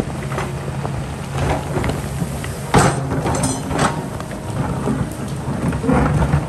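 Kobelco excavator's engine running steadily while its bucket works through rock, with stones and gravel clattering and grinding. Sharper crashes come about three and four seconds in, and again near the end.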